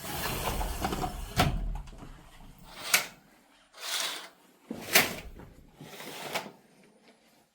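A door being handled and shut: a rumbling scrape, then a few sharp knocks and clicks, the loudest about one and a half, three and five seconds in.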